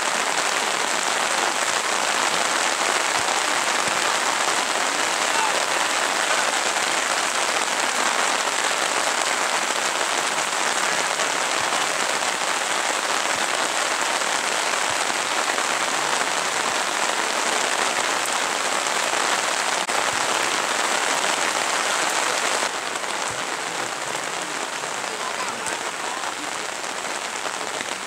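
Steady, heavy rain hissing, with no break. It drops a step in level near the end.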